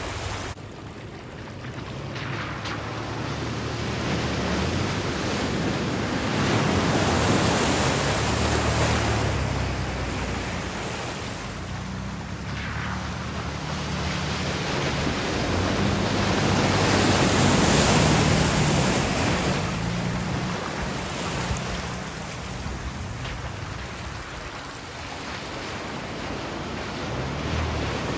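Off-road 4x4 trucks wading through a deep, flooded mud hole: engines pulling under load over the churning, sloshing rush of water pushed ahead of them. The water and engine noise swell and fade several times as the vehicles come through.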